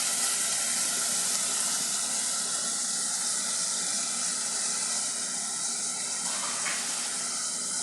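Onion, hot pepper and pimento peppers frying in hot oil in a pan, sizzling steadily.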